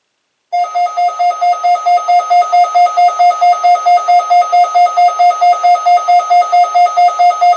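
Electronic alert beeping from a weather radio receiver: one buzzy pitched tone pulsing rapidly, about four to five beeps a second. It starts about half a second in and is loud.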